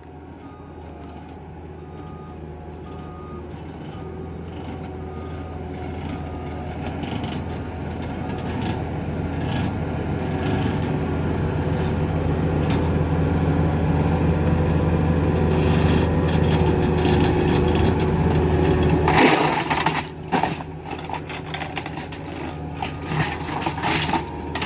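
Forestry mulcher running, its steady engine and drum drone growing gradually louder. About nineteen seconds in, a sudden burst of loud grinding, followed by irregular cracking and clattering as the mulcher head shreds an old appliance.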